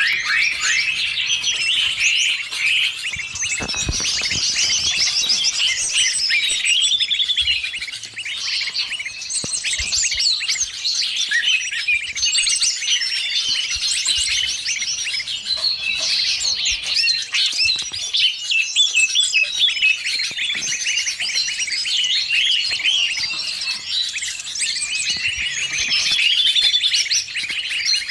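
Dense, overlapping chirping and trilling of many small songbirds, a 'burung ribut' bird-lure mix combined with greater green leafbird (cucak ijo) calls. It runs without a break, high-pitched and busy.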